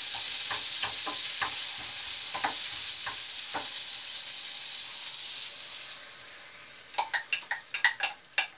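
Food sizzling in a frying pan on a gas hob, with a spatula knocking and scraping against the pan every half second or so. The sizzle dies away about two-thirds of the way in, followed by a quick run of sharp metal clinks on the cookware near the end.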